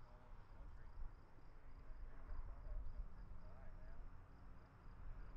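Crickets chirping at dusk: a faint, steady high-pitched pulsing chorus over a low rumble that swells toward the end.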